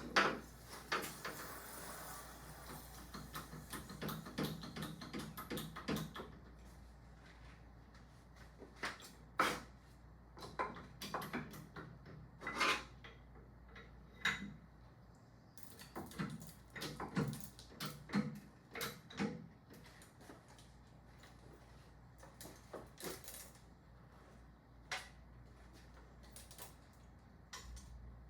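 Scattered knocks and clatter of hands-on workshop work on a motorcycle: short irregular bumps, busiest in the first few seconds and again in the middle, with quiet stretches between.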